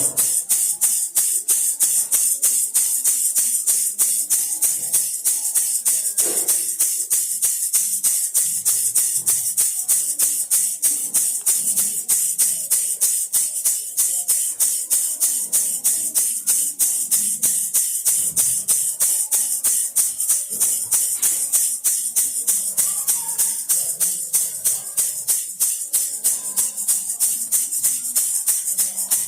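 Baby rattle shaken in a steady rhythm, about four bright, hissing shakes a second without pause.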